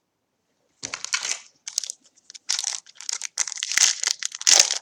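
A trading-card pack wrapper crinkling and being torn open in the hands, in quick irregular crackles starting about a second in.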